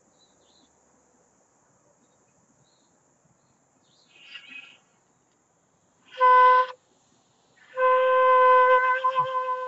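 Bamboo quena (South American notched-end flute) being blown: a short breathy puff about four seconds in, then a short clear note, then a long steady note held on the same pitch near the end.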